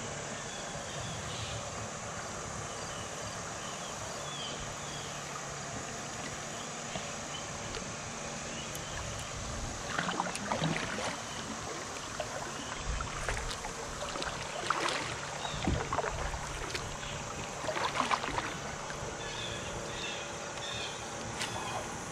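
Steady water and wind noise around a fishing kayak on a river, with a run of knocks and splashes in the middle of the stretch.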